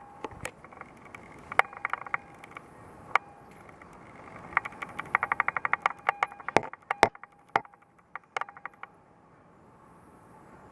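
Metallic clicking and rattling from a wire pet cage as the animals inside move about, in irregular bursts with a quick run of clicks around the middle.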